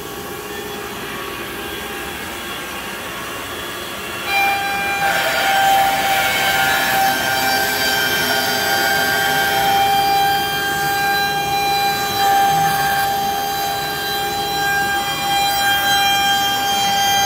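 CNC router's liquid-cooled spindle running at 4,000 RPM with a steady whine; about four seconds in it grows louder as the 1-inch bit starts cutting into the panel, a steady high whine with cutting noise that carries on while the machine carves.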